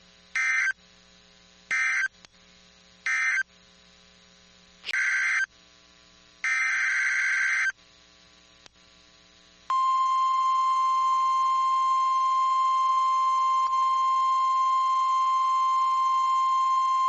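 NOAA Weather Radio Emergency Alert System tones: three short buzzy digital data bursts that close the previous message, then two longer data bursts that open the next one. From about ten seconds in, the steady 1050 Hz weather-radio alert tone sounds without a break.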